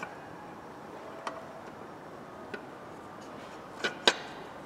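A few separate sharp clicks and clinks of metal parts and tools being handled during engine assembly, with two close together near the end.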